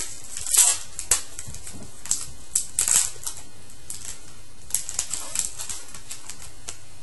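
Wrapper of a 2013-14 SPx hockey card pack being torn open and crinkled by hand: a run of short crackling rustles, loudest in the first three seconds, then lighter handling until about two-thirds of the way through.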